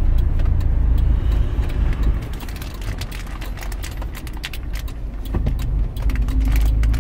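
Engine and road noise heard from inside the cab of a moving vehicle: a steady low rumble, easing off a little in the middle, with many light clicks and rattles throughout.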